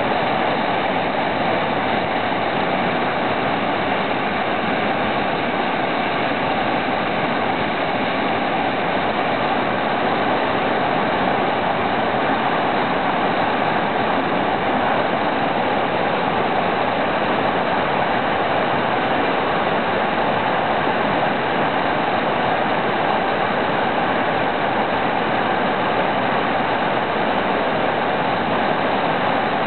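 Whitewater rapids rushing over boulders, close by: a loud, steady rush of river water that never lets up.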